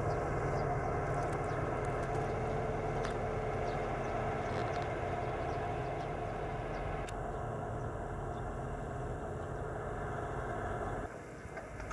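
Engine of a farm ploughing machine running steadily while working a rice paddy; its sound drops briefly near the end.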